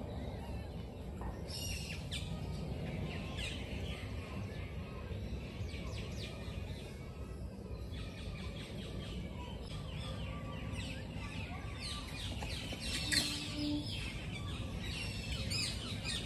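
Birds chirping: many short, high calls scattered throughout and busiest in the second half, over a steady low rumble of outdoor noise. A brief low tone sounds about thirteen seconds in.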